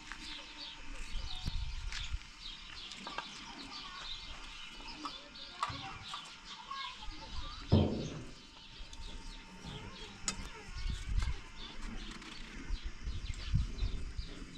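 Small birds chirping continuously, with low rumbling underneath and one louder dull low sound about eight seconds in.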